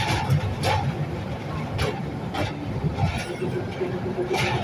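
Kangra Valley narrow-gauge toy train running, with a steady low rumble and irregular sharp clacks from the wheels.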